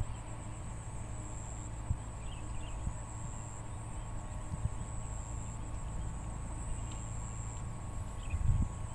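Insects chirring in a steady, high-pitched drone that swells and fades slightly, over a low outdoor rumble from wind on the microphone, with a stronger low bump near the end.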